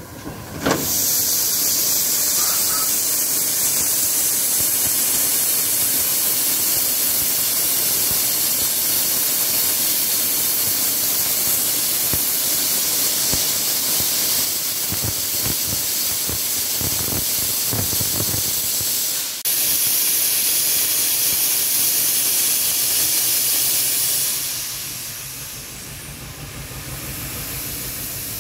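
Cockerill vertical-boilered 0-4-0 steam locomotive letting off steam in a loud, steady hiss that starts about a second in and falls quieter near the end.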